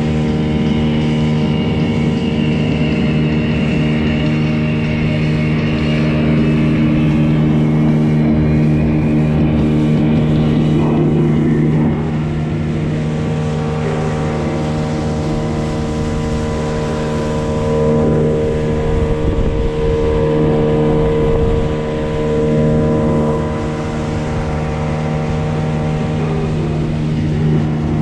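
Gladiator 9.9 outboard motor running steadily under way, its engine tone holding a constant pitch with a slight drop in loudness about halfway through.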